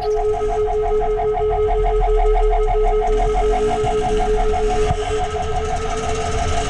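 Dirt bike engine running at a steady pace while riding, heard as an even droning hum over a low rumble.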